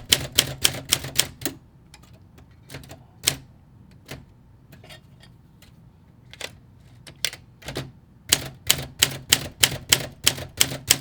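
Olympia SM5 manual typewriter being typed on: runs of sharp type-bar strikes, a quick run at the start, scattered strikes with a gap of about two seconds in the middle, and a fast steady run near the end.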